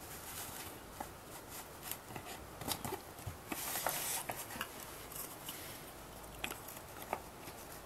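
Thin laser-cut plywood pieces clicking, tapping and scraping against each other as they are slotted together by hand: scattered light clicks, with a brief scraping rub about four seconds in.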